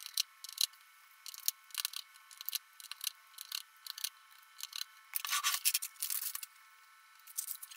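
Small precision screwdriver clicking and scraping against the tiny frame screws of an LG K50S smartphone as they are backed out: a run of sharp little clicks, with a longer scratchy stretch a little past the middle.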